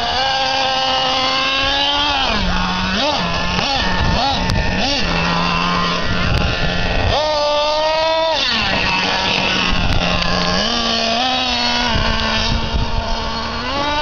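Traxxas Revo nitro R/C monster truck's small two-stroke glow engine running under throttle. It holds a steady note, dips and blips, rises sharply about seven seconds in, then falls back to a lower steady note and picks up again near the end.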